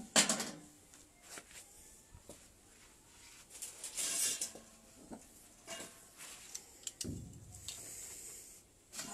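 A single loud metal clank as the steel lid of a small drum smoker settles onto the pot, followed by scattered light knocks and rustling handling noises.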